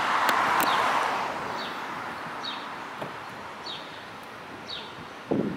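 A car passing on the street, its tyre noise fading away over the first couple of seconds, while a bird repeats a short falling chirp about once a second. A low thump comes near the end.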